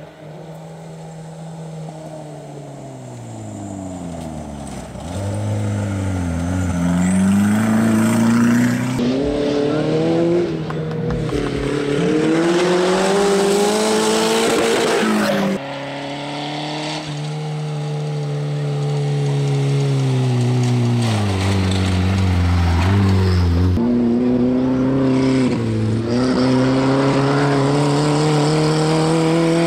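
Off-road racing 4x4 engines revving, their pitch falling and climbing again over and over as the vehicles slow and accelerate. The sound changes abruptly a few times.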